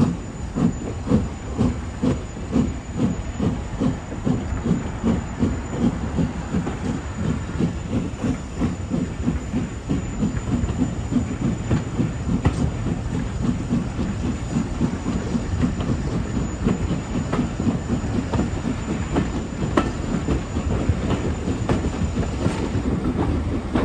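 Steam locomotive chuffing as the train gets under way, heard from the carriages. The exhaust beats start at about two a second and quicken until they merge into a continuous run, with the clatter of carriage wheels on the rails.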